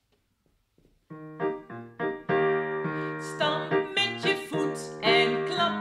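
Digital piano playing a chordal introduction to a children's song, starting about a second in after a brief silence.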